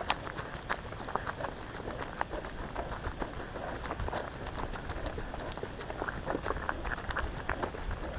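Footsteps crunching through dry leaf litter and twigs on a bush track, an irregular crackle of many small snaps.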